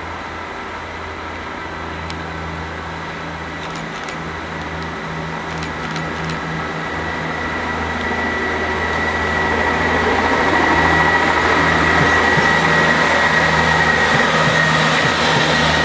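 Express Sprinter diesel multiple unit pulling away under power: a steady diesel drone with a thin high whine over it, growing louder as it accelerates toward and past the listener.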